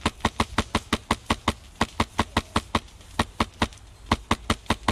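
Airsoft rifle firing a rapid string of single shots, about five or six sharp cracks a second with a few brief pauses.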